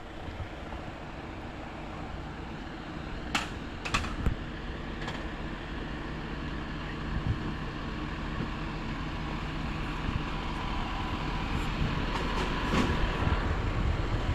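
Heavy diesel engine running steadily, slowly growing louder, with a few sharp metallic clanks about three to five seconds in and again near the end.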